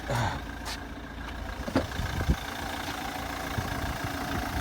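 Vauxhall Astra 1.7 turbo diesel engine idling steadily. Two sharp knocks come a little under two seconds in and about half a second apart.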